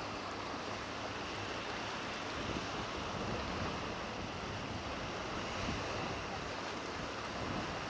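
Steady wind and surf noise at the water's edge, with wind rumbling on the microphone.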